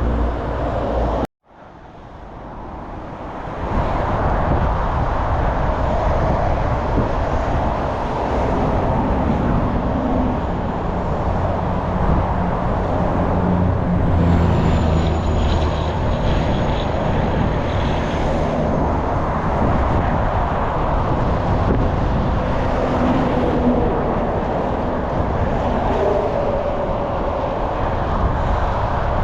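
Steady road traffic noise, cars running past on surrounding streets. About a second in, the sound cuts out briefly to silence and fades back up over the next couple of seconds.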